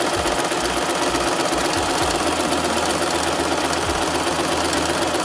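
Singer Prelude electric sewing machine running steadily at speed, stitching a straight seam with a fast, even clatter.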